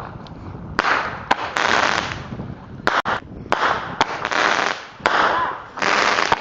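Fireworks going off in quick succession: about eight sharp bangs in a few seconds, each trailed by a long echo.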